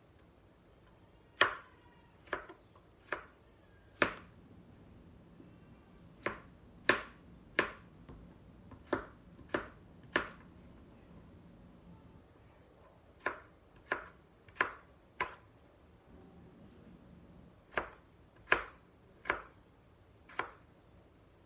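Kitchen knife slicing chayote on a cutting board: sharp single knocks, about one and a half a second, in short runs of three or four strokes with brief pauses between runs.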